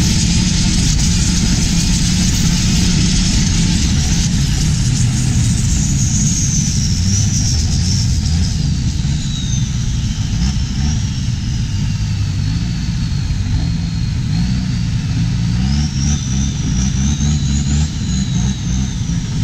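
Diesel engine of a longtail boat running hard on its long propeller shaft, revving up and down in pitch as the boat speeds up, with the hiss of water spray.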